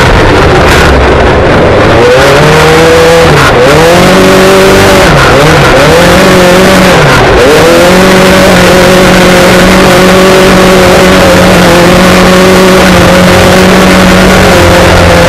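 Off-road race car's engine heard loud from inside the cockpit while racing on a dirt track, over a constant rush of noise. Its revs dip and climb back several times in the first half, then hold steady.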